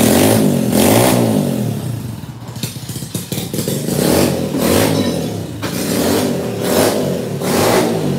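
Scooter engine revved repeatedly in the shop, its pitch rising and falling with each blip and easing off for a moment about two seconds in.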